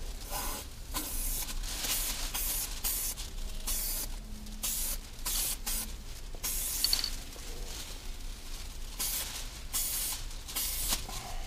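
Aerosol can of Loctite spray adhesive hissing in many short bursts, with one longer spray about seven seconds in, as adhesive is sprayed onto a sagging headliner's fabric and the roof above it.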